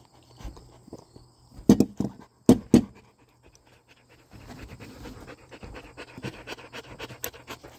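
A dog panting fast with its mouth open and its lips full of porcupine quills; the steady panting sets in about four seconds in. Earlier, two short loud vocal sounds break in, about a second apart.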